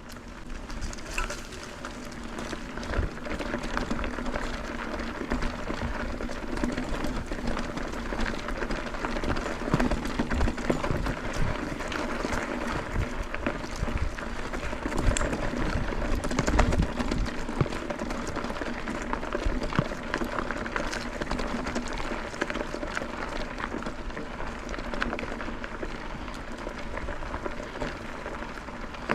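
Mountain bike rolling along a dirt trail: steady tyre noise on dirt and gravel, with many small rattles and knocks from the bike over bumps.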